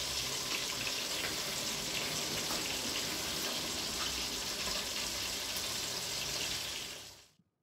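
Meatballs in tomato sauce sizzling steadily in an oiled frying pan on the stove, a constant hiss that fades out near the end.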